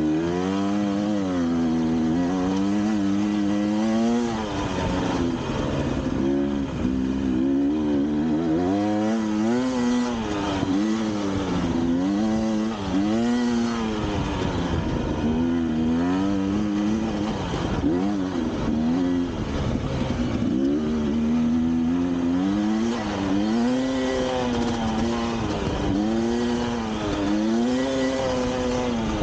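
A motor vehicle's engine, likely a motorcycle, running under load, its pitch climbing and dropping every second or two as the throttle is opened and eased off again and again.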